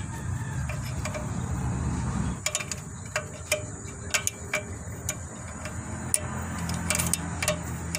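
Drum brake's star-wheel adjuster being turned with a flat tool through the hole in the backing plate, clicking tooth by tooth: a run of irregular sharp clicks from about two and a half seconds in, after a low rumble.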